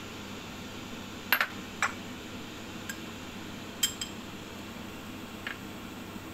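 Half a dozen light clinks and taps of ceramic dishes on a glass stovetop, the loudest pair about a second in, over a steady low hum.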